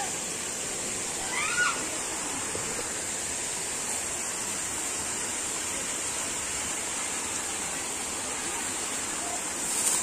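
Steady rush of water from a rocky mountain stream and its cascades, with a steady high-pitched hiss over it. A short call-like sound rises and falls about a second and a half in.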